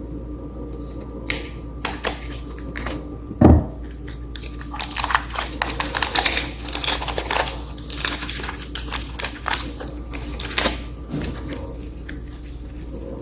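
Scattered sharp clicks and a single heavier thump, then several seconds of dense, rapid crackling and ticking that thins out near the end.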